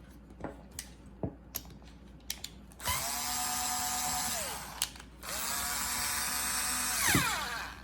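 Bosch IXO cordless screwdriver motor running twice, driving a screw in, with the pitch dropping at the end of each run as it winds down. A few light handling clicks come before the first run.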